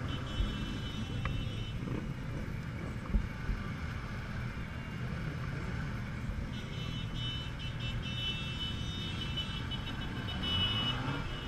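Honda Gold Wing 1800's flat-six engine running low and steady as the bike rolls at walking pace, heard from the rider's helmet with some wind noise. A high, wavering tone sounds at the start and again from about six and a half seconds on.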